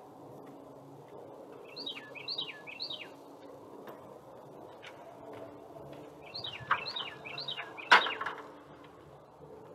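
A songbird sings two short phrases of three quick downslurred notes each. About eight seconds in, a sharp clatter, the loudest sound, as a drill drops from the top of a stepladder onto pavement while the ladder is moved.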